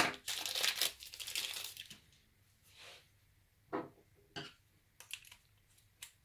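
Hand-handling noise on a wooden desk: about two seconds of rustling and crinkling, then near quiet broken by a few short, light knocks as tools are picked up and set down.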